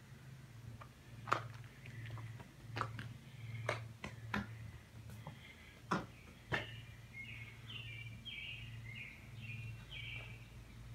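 Footsteps knocking irregularly on the wooden plank deck of a covered bridge. In the second half a bird sings a run of short, repeated high notes about twice a second, over a faint low hum.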